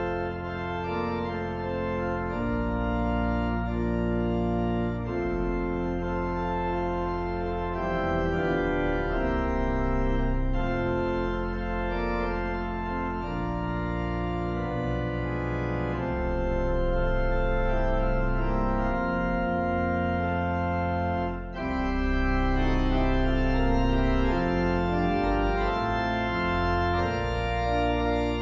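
Organ playing a slow piece of long sustained chords over a deep bass, the chords changing every few seconds, with a short break about 21 seconds in.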